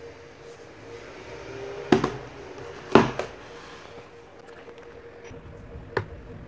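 Plastic fan base knocking twice on a wooden table top as it is turned over and set down, about two and three seconds in. A lighter click near the end as a screwdriver tip meets a screw in the base, over a faint steady hum.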